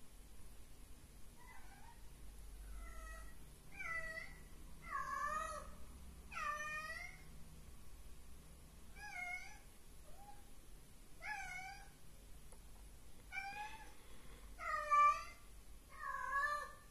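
A cat meowing repeatedly: about a dozen separate meows, each about half a second long and bending up and down in pitch, the loudest near the end.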